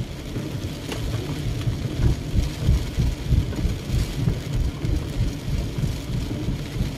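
Heavy rain drumming on a car's roof and windows, heard from inside the cabin, over a continuous low, uneven rumble.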